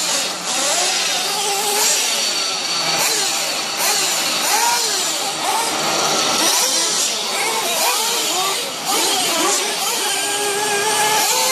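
Small nitro glow engines of radio-controlled monster trucks revving up and down, their high whining pitch rising and falling again and again as the throttle is worked, with more than one engine overlapping.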